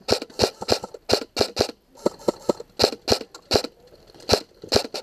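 Airsoft gunfire at close range: an uneven string of sharp pops and clacks, about three a second, with a couple of short pauses.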